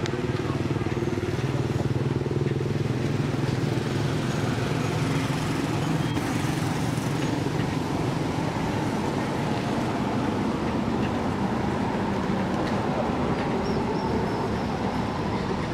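An engine running steadily, a continuous low drone that holds its pitch without revving.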